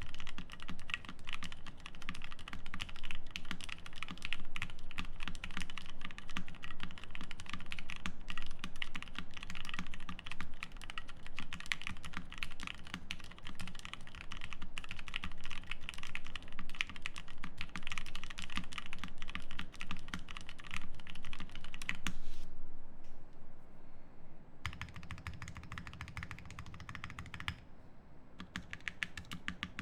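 Fast, continuous typing on a Bakeneko60 mechanical keyboard with lubed Gateron Milky Yellow linear switches, an FR4 plate and CRP Tulip keycaps. The keystrokes run densely, then thin out with a short lull about two-thirds of the way through, and sparser keystrokes follow to the end.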